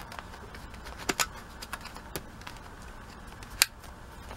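Clear plastic lid and aluminium foil pan being handled, giving a few sharp clicks and crinkles, the loudest about three and a half seconds in.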